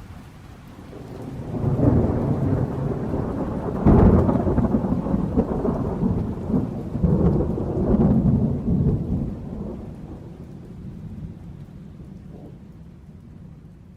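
Thunder in a rainstorm: a low rumble builds, a sharp crack about four seconds in, then rolling rumbles that slowly fade away over steady rain.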